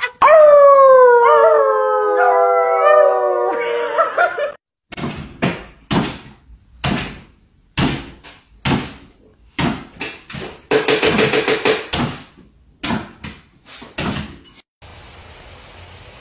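A dog howls in one long wavering call that falls in pitch over about four seconds. A run of short sharp sounds follows, about one a second, and near the end a lawn sprinkler sets up a steady hissing spray.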